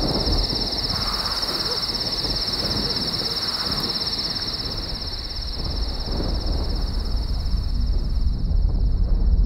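Night ambience of crickets chirping in a steady, fast-pulsing trill, over a low rumble that swells louder toward the end.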